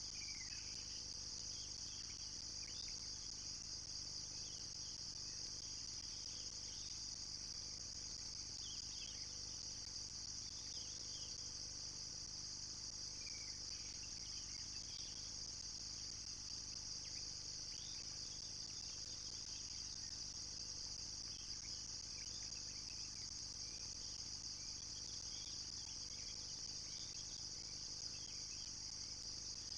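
Steady, high-pitched chorus of night insects such as crickets, unbroken throughout, with scattered short chirps a little lower in pitch.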